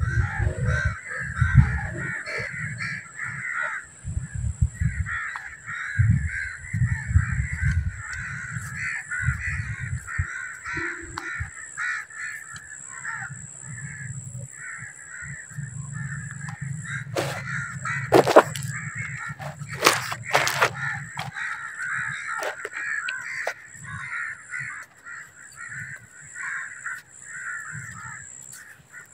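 A crowd of birds calling continuously in a dense chatter, over a thin steady high whine. Wind gusts rumble on the microphone, heaviest in the first part, and a few sharp knocks come about two-thirds of the way through.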